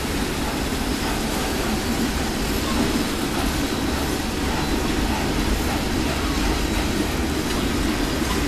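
Southern Railway 630, a 2-8-0 steam locomotive, running slowly toward the listener: a loud, steady noise with no clear beat.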